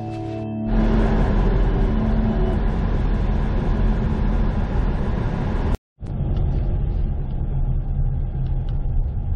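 Ford Mustang driving, its engine and tyre noise heard from inside the cabin. The sound breaks off sharply about six seconds in and resumes with less road hiss. The tail of organ music ends in the first second.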